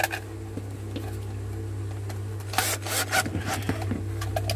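Cordless drill-driver driving a screw into a plastic drill housing, a loud grinding burst of about a second starting about two and a half seconds in, after a few light handling clicks.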